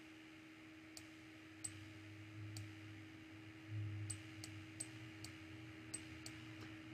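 Computer mouse button clicking about nine times at uneven intervals, each a short sharp click, over a faint steady electrical hum.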